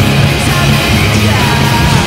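Loud hard rock music with singing, the goal song that plays after a hockey goal horn to celebrate a goal.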